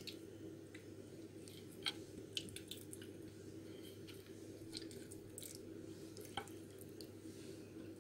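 Raw chicken wings and drumsticks being laid by hand onto rice in a glass baking dish: faint wet squishes and a few small clicks, over a steady low hum.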